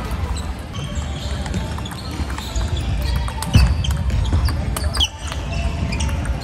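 Table tennis balls clicking sharply off tables and rubber bats in a sports hall, scattered irregular taps over a steady low rumble, with one louder knock about three and a half seconds in.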